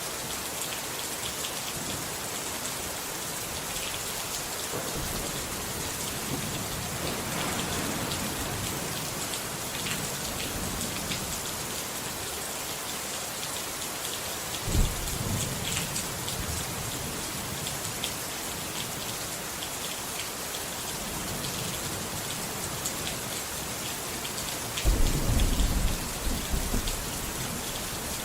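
Steady rain falling, with low rolls of thunder: a sudden clap about halfway through and a louder, longer rumble near the end.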